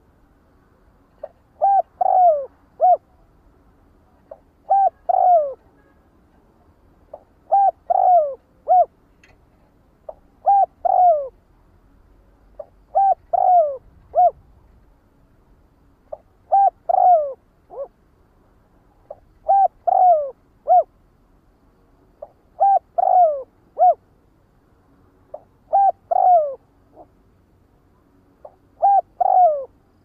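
Spotted dove (cu đất) cooing its flock-calling song: a three-note phrase of a short coo, a longer falling coo and a short closing coo. The phrase repeats about every three seconds, around ten times.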